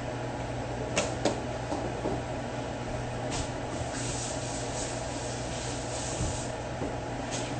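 Kitchen sounds while cooking: two sharp clicks about a second in, then a spell of hissing in the middle, over a steady low hum.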